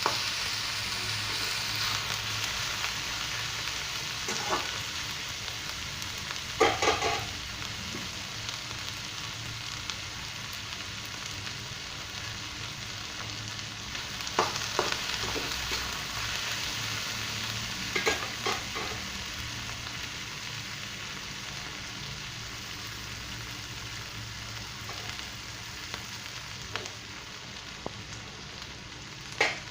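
Chopped vegetables (garlic, ginger, capsicum and cabbage) sizzling in a frying pan as they cook down, with a few sharp clinks of the stirring spoon against the pan.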